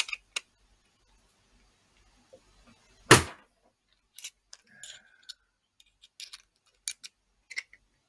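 Small screwdriver working at the tiny screws inside an opened laptop: light metal clicks and ticks of the tip against screws and chassis, with one louder knock about three seconds in.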